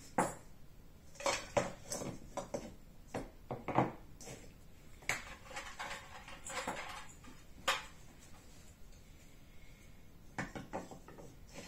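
A ceramic mixing bowl, small containers and a wooden spoon being taken out and set down on a wooden table: a string of separate knocks and clatters, with a short rustle about six seconds in.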